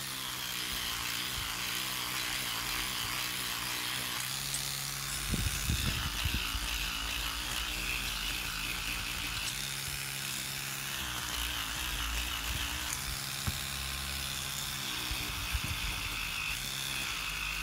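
Electric toothbrush running with a steady, slightly wavering hum as its bristle head scrubs rust out of the corners of a Luger P08's steel grip frame, with a few low bumps of the brush against the metal about five to seven seconds in.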